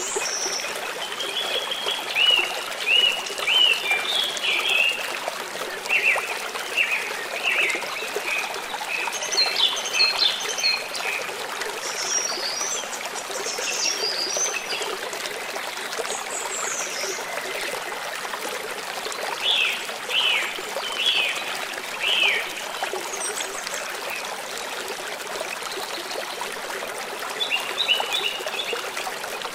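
A stream of water trickling and flowing steadily, with small songbirds chirping over it in short runs of quick, high notes that come again and again.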